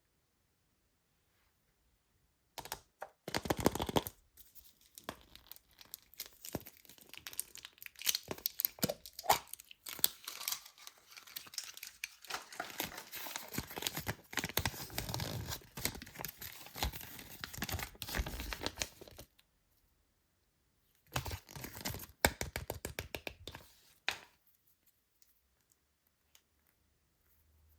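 Plastic toy packaging being torn open and crinkled by hand, a dense crackle in two spells with a pause of about two seconds between.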